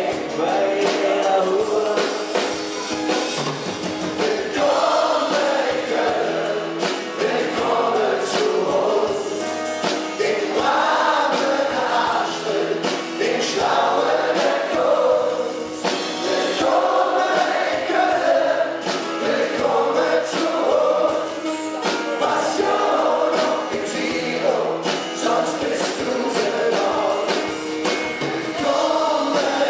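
Live band performing a Kölsch-language pop song: several male voices singing together over acoustic guitar, keyboards and drums.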